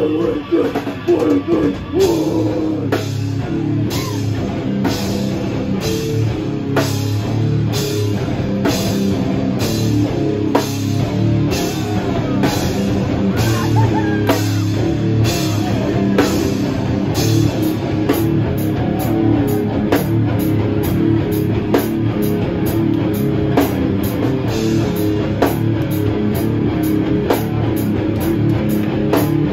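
Live rock band playing loud: electric guitar and drum kit. The first two seconds are a few stop-start hits, then the drums settle into a steady beat that quickens a little past halfway.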